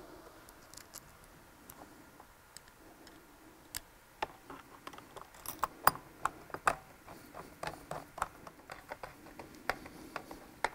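Light, irregular clicks and ticks of a hand screwdriver turning the screws that hold down the top cover of an RS800 CVT transaxle. The clicks come thicker and louder from about four seconds in.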